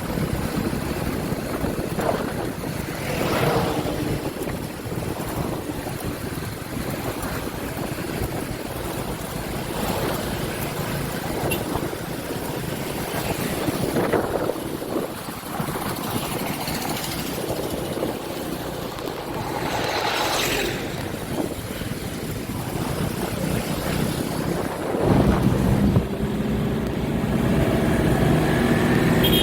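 Motor vehicles passing one after another along the road, each a swell that rises and fades, over wind noise on the microphone. About 25 s in, a steadier engine hum comes in close and becomes the loudest sound.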